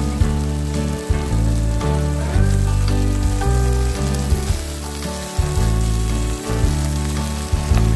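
Instrumental background music over meat sizzling on low heat in a foil-lined frying pan.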